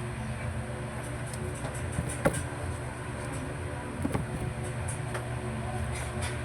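Steady low background hum with three separate short knocks, roughly two seconds apart.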